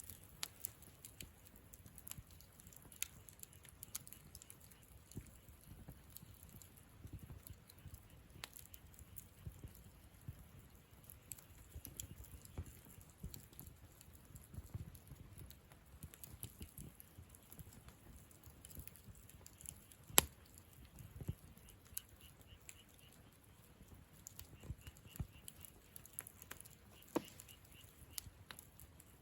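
Wood campfire crackling softly, with scattered small snaps and pops and one sharper, louder pop about two-thirds of the way through.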